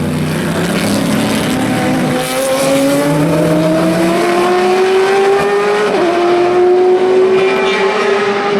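A Le Mans race car's engine accelerating, its pitch rising steadily. About six seconds in there is one upshift, and the car grows louder as it comes closer.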